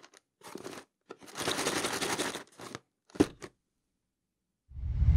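Cardboard display box being handled: hands rustle and scrape on the card, then a short sharp knock as the box is set down. Music fades in near the end.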